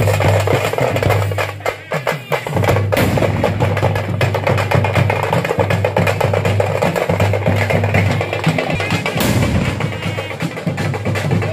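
A troupe of parai (thappu) frame drums beaten with sticks in a fast, dense rhythm.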